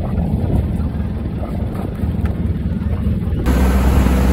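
Boat's 100 hp Isuzu diesel inboard engine running steadily at a low drone. About three and a half seconds in, the sound cuts abruptly to the boat underway, the engine louder and steadier.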